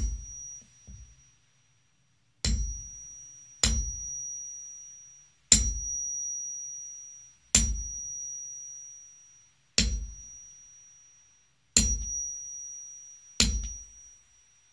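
Hammer striking a steel hole punch through leather onto a wooden board, punching stitching holes in a soccer ball panel. Eight sharp knocks come about every two seconds, each leaving a high metallic ring that fades.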